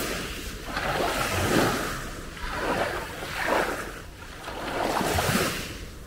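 Small sea waves breaking and washing up a fine-pebble beach, the surf swelling and fading about three times.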